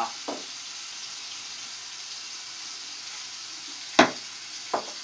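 Bathroom tap running into the sink with a steady hiss. Two sharp knocks come about four seconds in, close together, the first the louder.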